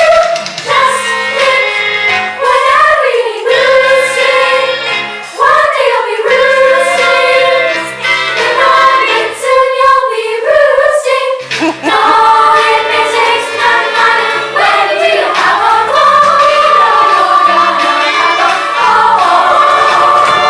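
A young stage-musical cast singing a finale number together as a chorus, over an instrumental accompaniment with held bass notes.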